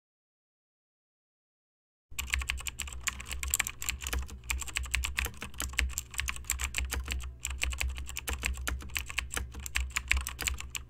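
Computer keyboard typing: a rapid, uneven run of key clicks that starts about two seconds in and cuts off abruptly at the end, with a low hum beneath.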